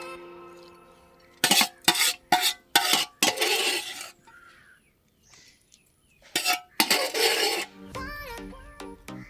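A spoon knocking and scraping against a pan as thick chilli pickle is scooped out: several sharp knocks, then a longer scrape, twice over. Music comes in near the end.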